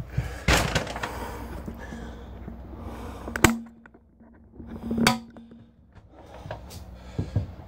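Handling noise of a phone camera being picked up and re-aimed: rustling, then two sharp knocks about a second and a half apart as it is set against the stone tabletop.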